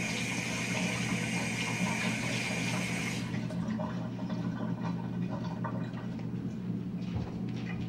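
Kitchen faucet running into a stainless steel sink while hands are rinsed under it; the water is shut off about three seconds in. A steady low hum runs underneath.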